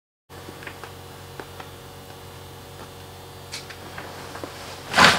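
Scattered faint ticks and clicks from a spinning rod and reel being handled, over a low steady hum. A short, loud noisy burst comes near the end.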